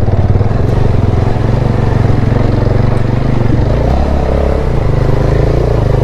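Motorcycle engine running steadily as the bike rides slowly along a muddy dirt track, the note dropping briefly about four seconds in.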